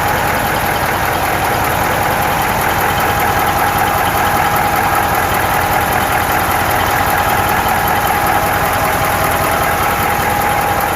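Caterpillar 3408 V8 diesel truck engine running steadily at idle on a test run after its air compressor was refitted, with a steady high whine over the engine note.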